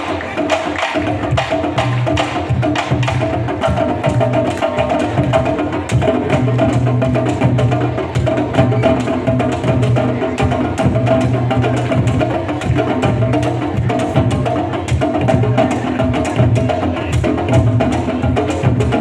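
Candombe drum ensemble playing a steady, dense rhythm, with hand strokes on the drumheads and sticks clicking on the wooden drum shells.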